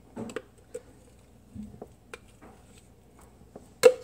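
A metal spoon scraping and knocking against a blender jar, working thick frozen smoothie out into a bowl: scattered soft clicks and knocks, with one sharp knock near the end.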